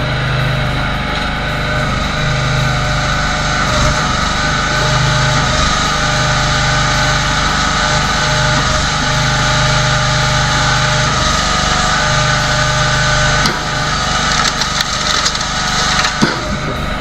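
Engine-driven log splitter running steadily, with a few sharp knocks and cracks of wood a little after three quarters of the way in.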